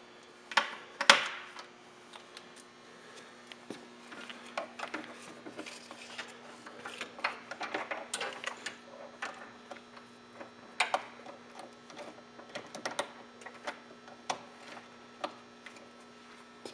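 Scattered clicks and knocks of plug connectors and cables being handled and pushed into a TV lift's control box inside a wooden cabinet, the sharpest knock about a second in. A faint steady hum runs underneath.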